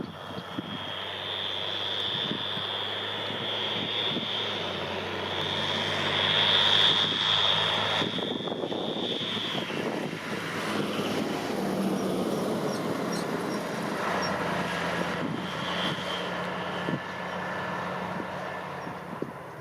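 Fendt Favorit 824 tractor's turbo diesel engine running, with a high steady turbo whistle over the engine for about the first half that stops about halfway through and comes back briefly near the end.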